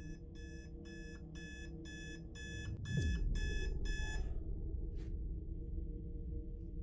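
Small alarm clock beeping about twice a second, stopping about four seconds in, over a low steady drone. About three seconds in, a deep falling boom sets in and a low rumble carries on.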